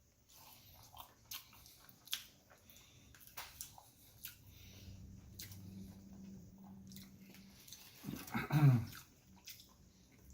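Close-up chewing of a McDonald's Daily Double burger: wet mouth clicks and smacks scattered throughout. A short vocal sound with a bending pitch comes a little after the eight-second mark.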